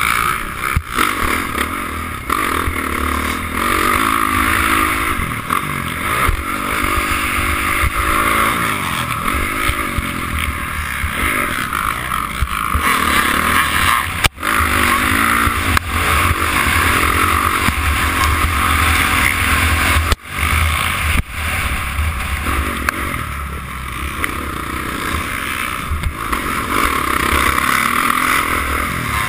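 Honda CRF450 dirt bike's single-cylinder four-stroke engine, heard from a helmet-mounted camera while riding a motocross track. Its pitch rises and falls over and over as the throttle is rolled on and off, over a steady rush of noise. The sound cuts out for an instant twice.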